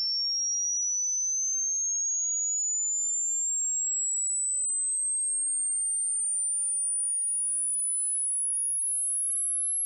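A single pure electronic sine tone, very high-pitched, gliding slowly and steadily upward in pitch: a hearing-test frequency sweep probing the upper limit of a listener's hearing.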